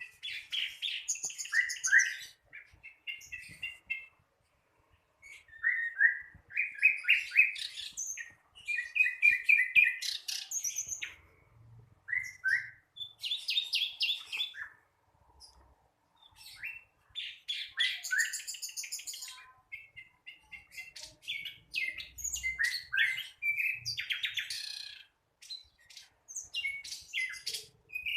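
A young sikatan londo flycatcher singing an unfinished song, still learning it. It sings in bursts of varied chirps and quick trills, each a second or two long, with short pauses between them.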